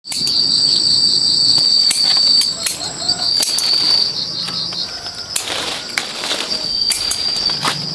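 Insects trilling, a high continuous buzz that pulses in quick beads, with a few sharp clicks and rustles from fruit and branches being handled.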